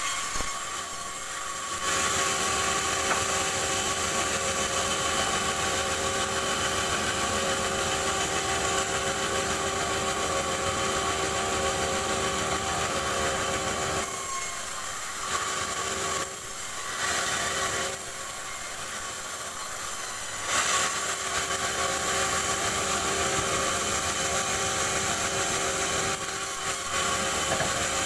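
Log bandsaw mill running and cutting rubberwood: a steady machine hum under the harsh hiss of the blade in the wood. The hiss eases off for a second or two several times between passes while the saw keeps running.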